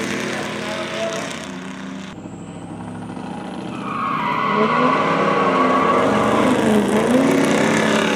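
Two trucks racing off the line on a drag strip: engines at full throttle, getting louder as they come past, the pitch climbing and dropping at gear shifts about six and a half to seven seconds in, with a high steady whine over them. Before an abrupt change about two seconds in, a more distant engine sound of trucks already running down the track.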